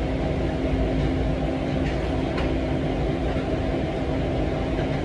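Steady mechanical hum of restaurant kitchen equipment, with one low steady tone, and two faint clicks a little after two seconds in.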